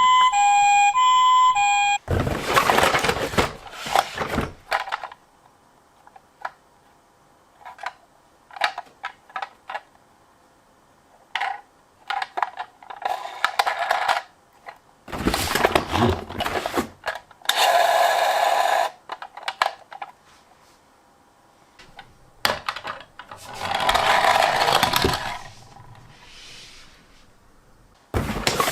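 A two-tone hi-lo ambulance siren alternates between two notes for about the first two seconds, then stops. After it come irregular clicks, rattles and clattering stretches from small toy minicars, with quiet gaps between.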